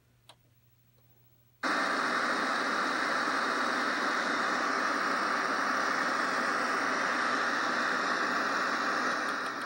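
Toshiba CRT television's speaker hissing steady, loud static, cutting in suddenly about a second and a half in as the set lands on the channel carrying the homemade composite-video transmitter, which sends picture but no sound. Near the end the hiss fades as the volume is turned down.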